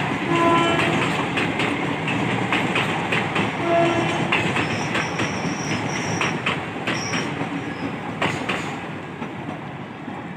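Passenger train of ICF coaches hauled by a WAP-4 electric locomotive running at speed, wheels clattering over the rail joints. Two short horn blasts, one at the start and one about four seconds in, and a high thin wheel squeal in the middle. The train grows fainter toward the end.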